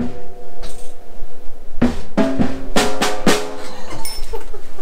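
Pearl Roadshow acoustic drum kit struck with sticks: one hit at the start, then a quick run of about six strokes between two and three and a half seconds in, the drumheads ringing on after each.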